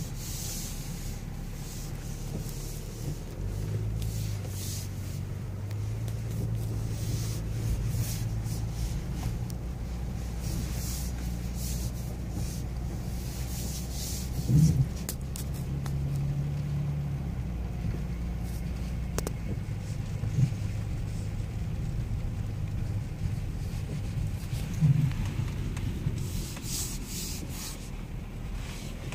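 Cabin noise in a BMW X6 driving over a muddy, rutted off-road track: a steady low rumble of engine and tyres with intermittent hissy swishes. Two short, sharp thumps stand out, one about halfway through and one near the end.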